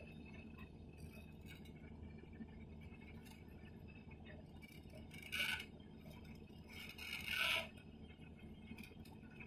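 Hyundai 350LC crawler excavator's diesel engine running as a steady low hum, with two short, louder higher-pitched sounds about five and seven seconds in.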